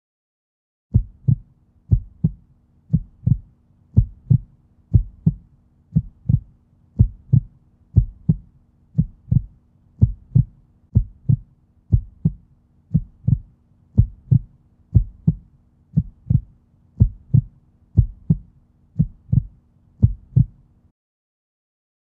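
Heartbeat sound effect: paired low thumps, lub-dub, about once a second, over a faint low hum. It starts about a second in and stops shortly before the end.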